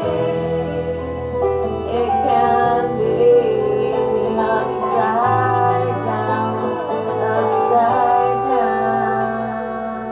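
A song playing: a voice singing over held instrumental chords and a bass line that changes note a couple of times.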